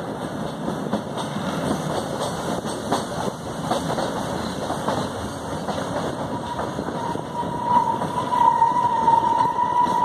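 Train running, its rumble broken by clicks of wheels over rail joints. About seven seconds in a steady high squeal sets in and grows louder as the train rounds a curve.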